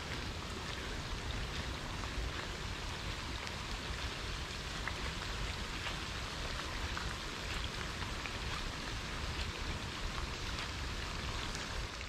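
Steady rain, with scattered single drops ticking close by.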